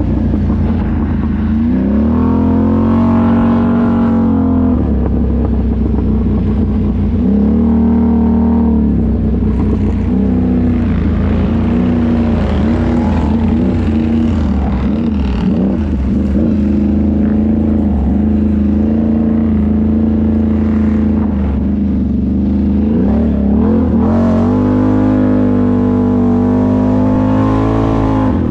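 ATV engine running under throttle, its pitch rising and falling many times as the rider opens and closes the throttle, then climbing and held high near the end.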